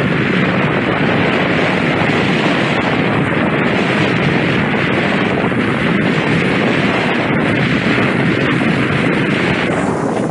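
Steady, loud rush of wind buffeting an action camera's microphone while a snowboard slides over packed snow during a downhill run.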